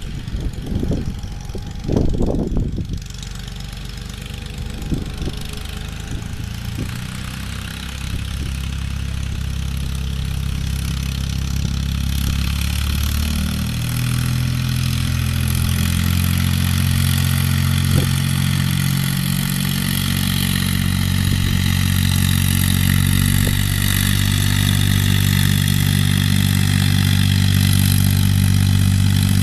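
Fiat farm tractor's diesel engine running steadily under load as it works across the field, growing louder as it comes closer. There are a few low thumps about two seconds in.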